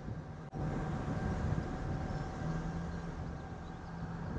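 Car driving, a steady rumble of road and engine noise with a faint hum, briefly cutting out about half a second in.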